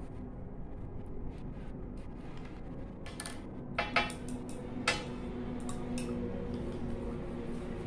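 Light clicks and clinks, with two sharper ringing clinks about four seconds in and another about a second later, over a steady low hum.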